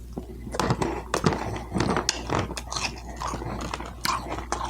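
A person chewing and biting food close to the microphone: an irregular run of wet mouth clicks and smacks.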